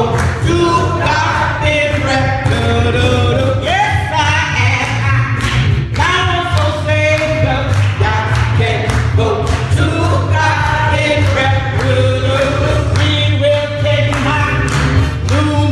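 Gospel music: voices singing with a choir over instrumental accompaniment, with a steady, strong bass and a regular beat.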